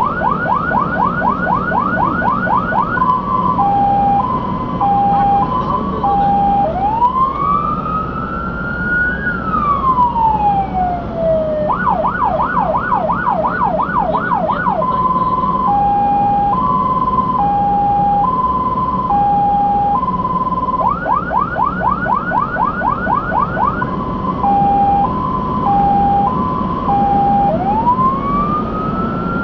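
Fire engine siren cycling through its modes: fast yelp sweeps of about five a second, a hi-lo two-tone, and a slow wail that rises and falls, the sequence coming round again partway through. The truck's engine and road noise run low underneath.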